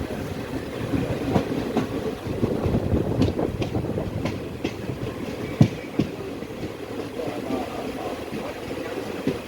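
Passenger train running along the track: a steady low rumble with irregular clatter and knocks from the wheels and carriages, one sharper knock a little past halfway.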